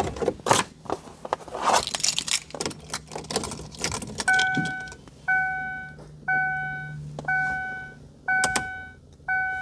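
Keys jangling and clicking, then, from about four seconds in, a Ford Thunderbird's dashboard warning chime beeping steadily about once a second, six times, as the car's electrics power up.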